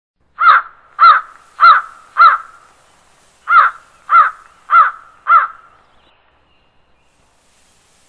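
A crow cawing: two runs of four loud, evenly spaced caws with a short pause between the runs.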